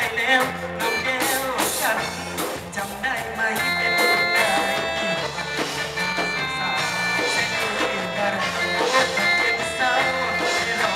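Live band playing upbeat Isaan-style music with electric guitar, bass and drum kit, while a man sings into a microphone.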